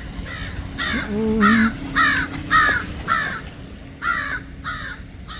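A bird giving a series of about eight harsh calls, roughly two a second, with a brief pause past the middle.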